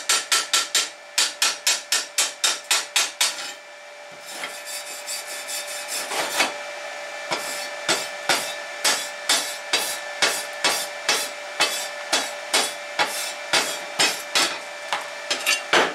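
Fast sharp knocking on a steel flat bar, about four strikes a second with the plate ringing, for the first few seconds. Then a hand wire brush scrubs back and forth over the weld beads, about two strokes a second, cleaning off slag and scale to show the welds.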